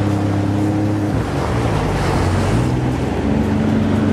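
Jet ski engine running under way, its steady drone dropping in pitch about a second in and climbing back near the end, over the rush of water.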